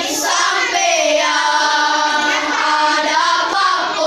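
Elementary-school children's choir singing together, sustaining and gliding between notes of a song in Buginese.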